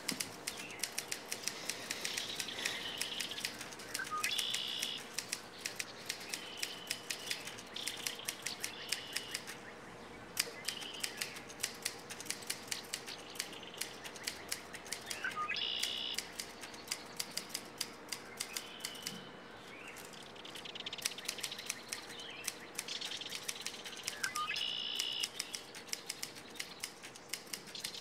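Manual typewriter keys clacking in quick runs, with brief pauses now and then. Small birds chirp in short high calls in the background.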